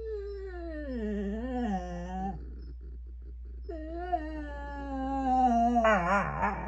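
A dog 'talking': two long, drawn-out howling whines that wander up and down in pitch, the first sliding downward over about two seconds, the second held for about three seconds and swooping upward at the end.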